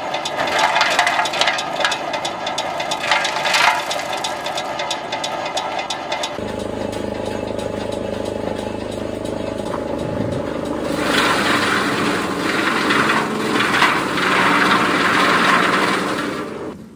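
Forage cutter running, with a dense rapid rattle over its motor drone. About six seconds in the sound changes abruptly to a lower hum with a rougher, noisier running sound that gets louder near the end, then cuts off suddenly.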